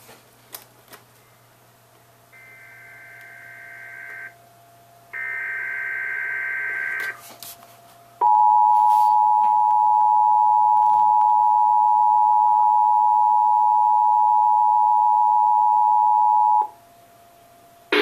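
Emergency Alert System signal played through a TV speaker. It opens with two buzzy, screechy SAME header data bursts of about two seconds each. Then the steady two-tone attention signal sounds for about eight seconds and cuts off abruptly, marking the start of a Required Monthly Test.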